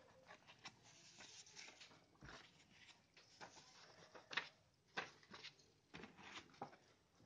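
Near silence with faint rustling and a few soft taps of paper warranty cards and leaflets being handled and set down beside a cardboard camera box, the clearest taps about four and five seconds in.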